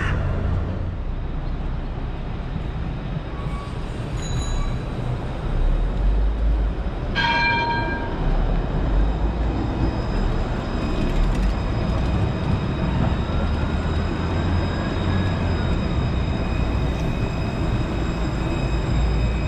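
Tram running past close by on street track, a steady low rumble of wheels and motors. About seven seconds in comes one short warning toot of its horn.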